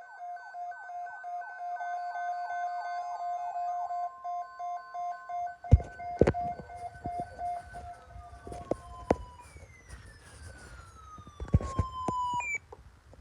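Siren sound: several steady pitches with fast repeated downward sweeps, then the pitches sliding down and winding off, broken by several sharp knocks and clicks, before cutting off near the end.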